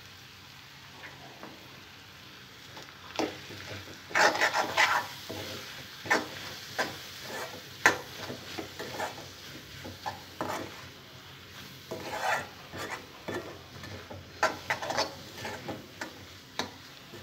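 Flat metal spatula stirring and scraping spinach and chana dal curry around an aluminium kadai over a faint sizzle. It starts after about three quiet seconds and goes on in irregular scrapes and taps against the pan.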